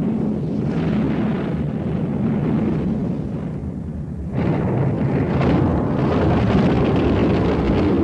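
Animated-film sound effect of a volcano erupting: a continuous low rumble that grows louder about four seconds in.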